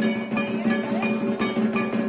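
Dhak, the large Bengali barrel drum, beaten in a quick, even rhythm of about four strokes a second over a steady ringing tone, the beat played for dhunuchi naach.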